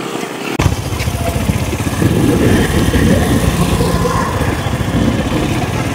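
Motorcycle running on the move: a steady low engine and road rumble that comes in about half a second in.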